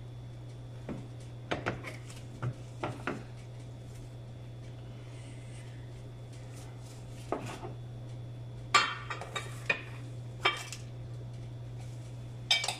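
Scattered clinks and knocks of kitchenware as butter is cut on a plate with a knife and put into an enamelled cast-iron pot. Several light knocks in the first few seconds, louder clinks in a cluster about nine to eleven seconds in, all over a steady low hum.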